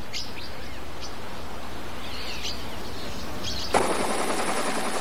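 Small birds chirping over a steady outdoor hiss. About three-quarters of the way through, it cuts to a louder, even rushing noise with a thin high whine: the aircraft the aerial footage is filmed from.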